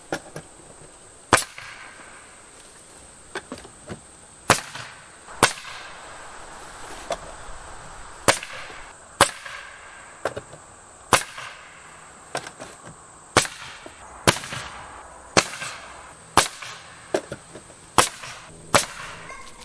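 Pneumatic Bostitch coil siding nailer firing nails into lap siding boards: a string of sharp, loud bangs at uneven gaps of about a second, each with a short hiss of air.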